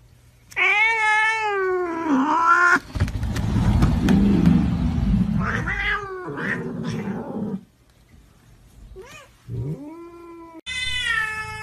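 Domestic cats meowing and yowling in a string of separate calls. A long, drawn-out meow wavers up and down for about two seconds. A stretch of rough rustling follows, with another yowl in it. Short rising meows come next, and near the end a long, high, steady yowl begins.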